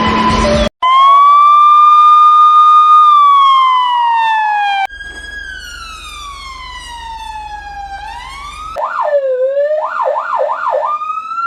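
Electronic police sirens in a string of separate clips. One wail rises, holds and slowly falls; after a sudden change comes a long falling wail, then a fast yelp sweeping up and down about 9 s in.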